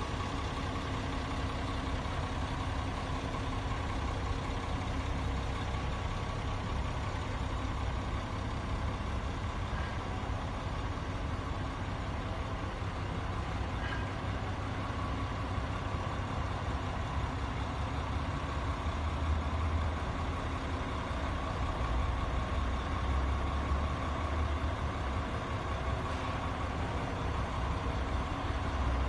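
Engine of a truck-mounted water well drill rig idling steadily.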